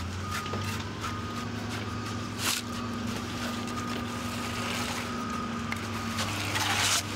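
Loader's diesel engine running steadily at idle, with shovels scraping into gravel, briefly about two and a half seconds in and again near the end.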